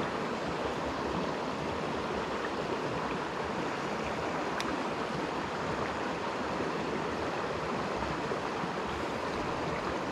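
A small mountain creek running with a steady rush of water, and a single faint click about four and a half seconds in.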